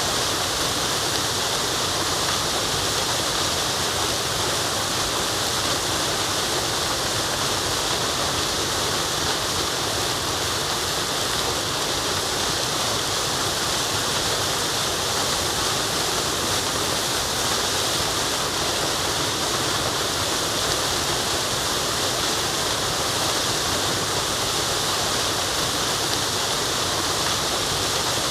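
Waterfall rushing, a steady, unbroken hiss of falling water with most of its weight in the upper range.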